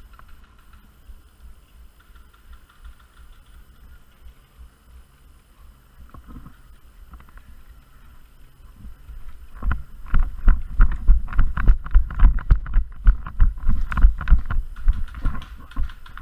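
Running footsteps, heavy thuds about three a second with gear jostling, starting about ten seconds in after a quieter stretch.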